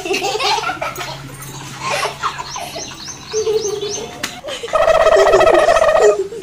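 Children and a young man laughing hard, in choppy bursts, with a long held high note near the end.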